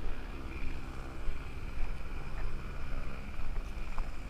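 A steady low engine drone, with wind rumbling on the microphone.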